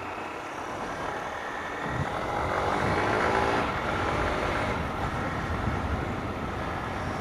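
Honda CG 160 Start's single-cylinder four-stroke engine running under way, with road and wind noise; it gets louder about two seconds in. The bike has an engine noise that the mechanic puts down to the clutch bearing.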